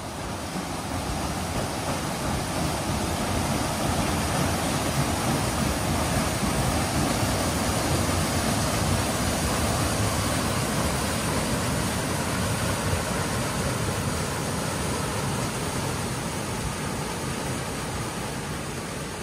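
Paddle steamer's paddle wheels churning the lake water as the ship gets under way: a steady rushing noise that swells over the first few seconds and eases slowly near the end.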